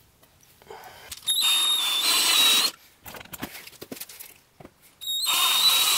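Cordless drill-driver running in two short bursts with a steady high whine, screwing metal cam-lock connector bolts into a fibreboard drawer front.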